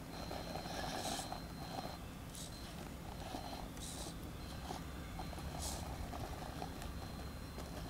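RC rock crawler's electric motor and gears whining faintly as it crawls up rocks, with a few short scuffing hisses as the tyres work against the stone.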